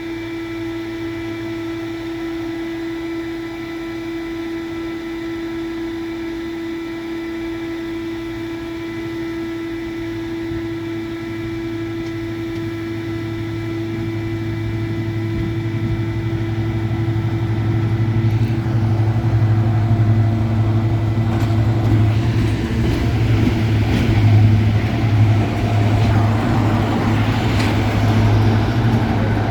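Class 55 Deltic diesel locomotive's twin Napier Deltic engines running with a steady whine, then growing louder and rougher from about halfway through as the engine note rises.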